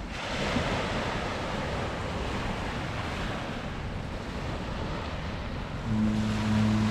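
Small waves breaking and washing over a pebble beach, with wind on the microphone. About six seconds in, a low steady drone with a clear pitch starts and holds, louder than the surf.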